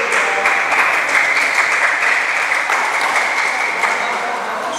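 Spectators applauding, a dense clapping that slowly fades.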